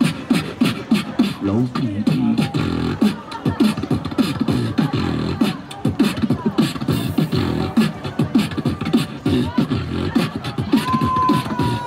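A street beatboxer performing into a handheld corded microphone: a fast, unbroken run of vocal kick, snare and hi-hat sounds with deep pitched bass sounds. Near the end a high whistle-like tone slides slowly downward.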